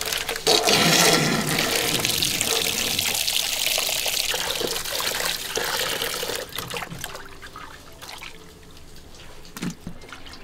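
Running water splashing, loudest for the first six seconds or so, then easing to trickles and drips.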